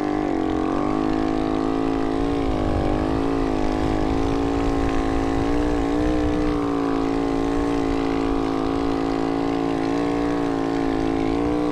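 Snow bike (a dirt bike fitted with a ski-and-track kit) engine running steadily at high revs under load while riding, its pitch wavering slightly with the throttle.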